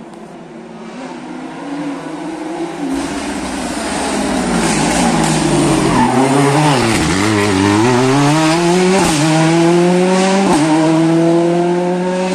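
Rally car engine approaching, growing louder. About six seconds in it brakes into a tight hairpin, revs falling and blipping on the downshifts. It then accelerates hard out of the turn, the pitch climbing with two upshifts in the second half.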